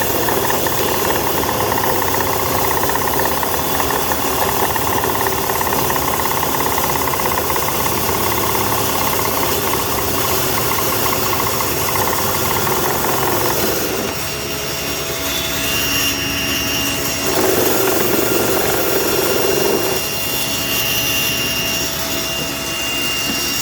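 Power tools running steadily, most likely the table saw and the cordless drill of a table-saw lathe jig. The sound changes about 14 seconds in, and again near 17 and 20 seconds.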